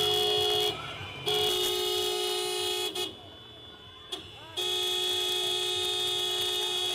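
Car horn held down in long, steady blasts as a protest honk: let go briefly about a second in, sounding again, then cut for about a second and a half in the middle with a short tap, before being held again to the end.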